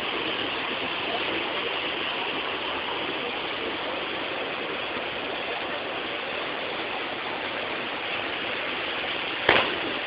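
Waterfall rushing down a rock face, a steady even roar of falling water. A single sharp knock sounds near the end.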